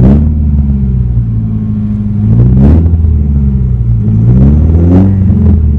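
Nissan 240SX's four-cylinder engine, run with its catalytic converter removed, revved three times from idle and heard loud inside the closed cabin. Each rev rises and drops back to idle: one right at the start, one about two and a half seconds in, one near the end.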